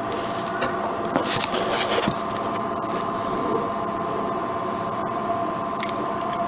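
A steady machine hum holding two fixed tones, with a few light taps and clicks of metal parts being handled on a workbench, mostly one to two seconds in and once near the end.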